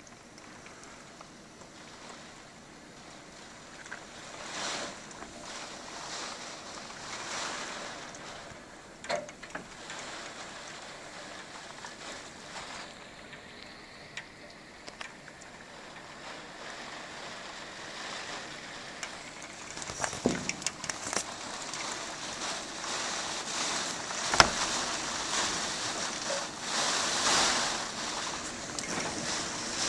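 Hurricane wind blowing in gusts that swell and fade, growing stronger in the second half. Scattered knocks and clatters come through from about twenty seconds in, the sharpest near the end.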